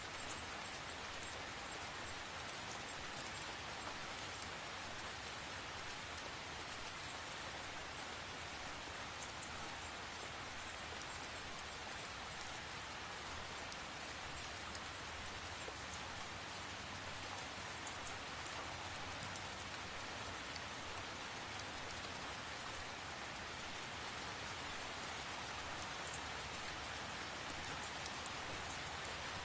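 Steady rain falling, an even hiss with scattered sharp ticks of individual drops.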